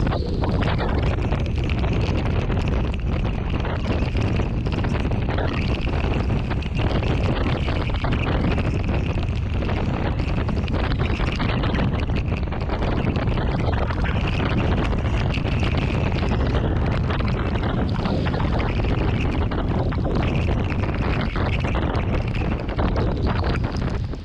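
Strong thunderstorm wind blowing across the microphone: a loud, steady rushing noise with heavy low rumble.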